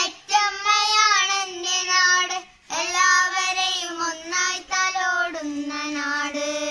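Two children singing a Malayalam patriotic song together in long held notes, with a short pause for breath about two and a half seconds in.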